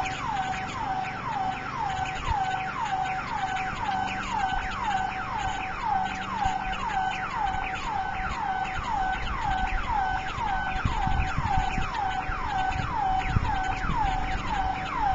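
Burglar alarm siren sounding continuously in rapid falling sweeps, about two a second, each dropping in pitch and settling on a short low note. It is a false alarm.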